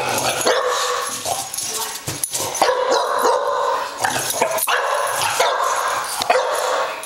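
Young English bulldog barking in long, drawn-out runs with short breaks between them.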